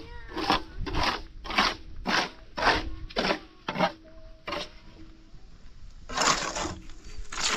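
Rhythmic scraping strokes, about two a second, then a pause and a longer scrape about six seconds in.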